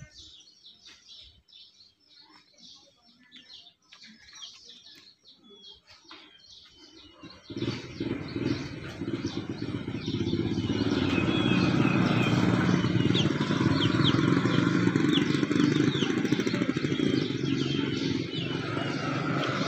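Birds chirping in short calls, then about seven and a half seconds in a nearby engine comes in and runs loud and steady, with the chirps still heard over it.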